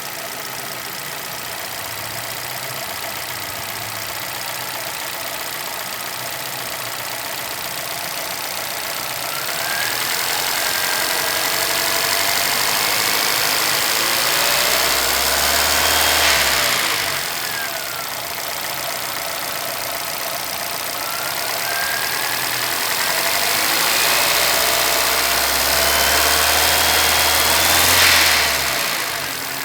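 Chevrolet Celta VHCE car engine idling, revved up twice, each time climbing steadily for several seconds before dropping back to idle. The owner cannot identify a noise in this engine.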